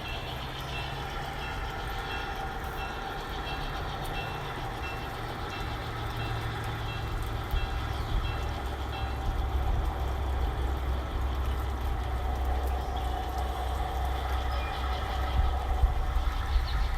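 G-scale model locomotive running on garden-railway track: a steady motor-and-gear hum with wheel rumble, slowly growing louder as it comes closer.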